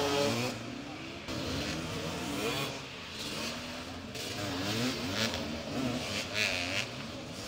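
Several motoball motorcycles revving up and down at once, their engine notes rising and falling over one another, with short bursts of hiss about five and six and a half seconds in.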